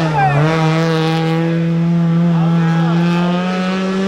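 Rally car engine held at high revs, a steady note that rises slowly in pitch.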